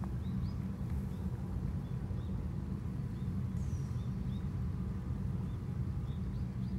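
Small birds chirping: short, high calls scattered through, coming more thickly near the end, over a steady low rumble.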